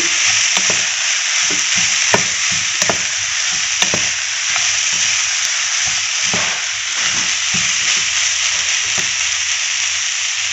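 Sliced green beans sizzling in oil in a non-stick frying pan while a wooden spatula stirs them, scraping and tapping against the pan at an uneven pace over a steady sizzle. The beans are still frying, not yet tender.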